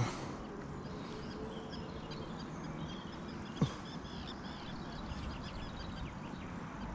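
Birds chirping in a quick run of short, high notes over steady outdoor background noise, with a single sharp knock about halfway through.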